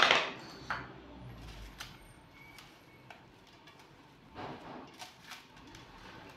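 Hands kneading and turning marinated fish pieces in a steel plate: soft wet squishing with scattered light clicks against the metal. A sharp knock right at the start is the loudest sound.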